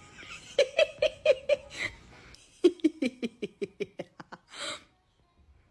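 Laughter: a run of short staccato "ha" pulses, then a second, faster run that falls in pitch, ending in a short breathy burst.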